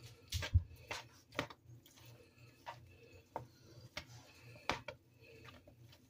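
Two forks shredding cooked pork loin in a bowl, their tines clicking and scraping against the bowl in irregular ticks, about one or two a second.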